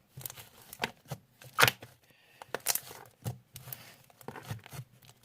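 Homemade glue slime being squished and stretched by hand: irregular sticky crackles and pops, the loudest about a second and a half in.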